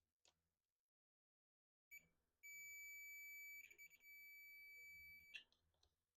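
Digital multimeter's continuity buzzer sounding a faint, steady high beep for about three seconds, broken briefly partway through, as the probes touch the chip's drive-output circuit. The beep signals a low-resistance path between the probes.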